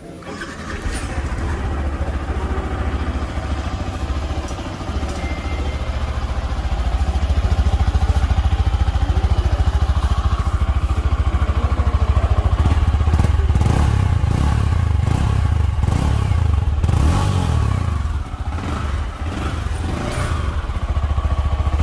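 Exhaust note of a Yamaha R15 V4 motorcycle's single-cylinder engine running steadily. It comes in about half a second in and grows louder about eight seconds in.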